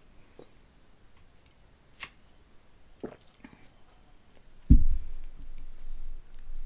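Soft mouth clicks and gulps from sipping soda, then a loud, low burp about three-quarters of the way through that fades out over a second or two.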